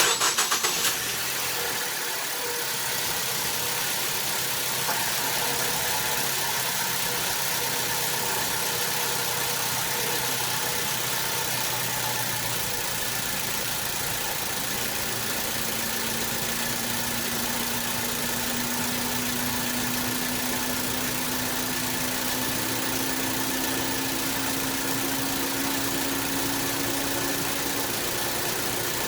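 A 2015 Ford Focus's 2.0-litre non-turbo four-cylinder engine idling steadily. It is a little louder and uneven in the first second, then settles. From about halfway a faint tone slowly rises in pitch over the engine.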